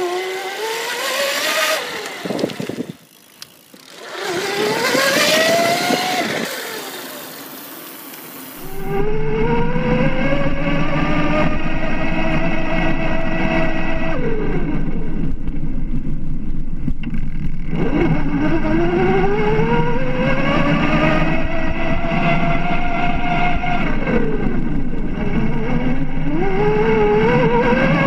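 Conway E-Rider electric mountain bike's mid-drive motor whining, its pitch rising as it speeds up and falling as it eases off, several times over. From about nine seconds in, a steady low rumble of tyres on brick paving runs under the whine.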